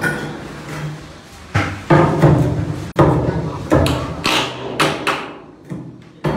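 A series of about ten irregular heavy knocks and bangs, each ringing briefly with a low hum, echoing inside a steel shipping container.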